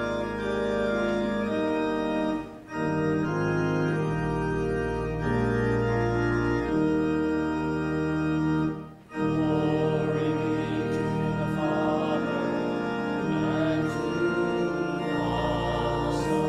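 Church organ playing sustained chords in phrases, with two brief breaks between phrases, about three and nine seconds in.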